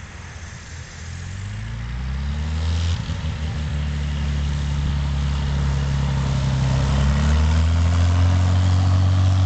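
Cessna 182's six-cylinder piston engine and propeller running and being throttled up, rising in pitch and loudness about a second in and again around seven seconds in, then holding steady.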